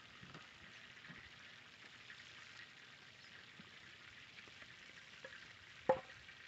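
Faint sizzle and crackle of sausage frying in a pan over a wood fire, with a sharp knock near the end as something is set down on the ground.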